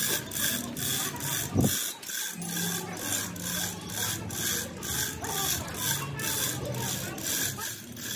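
Hand-pulled chain hoist lifting a diesel engine, its chain and mechanism clicking and rasping in a steady rhythm of about three strokes a second as the hand chain is hauled.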